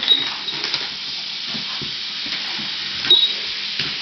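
Battery-powered toy wheelie motorcycle with its small motor whirring steadily, and a few short knocks of the plastic toy against the hardwood floor.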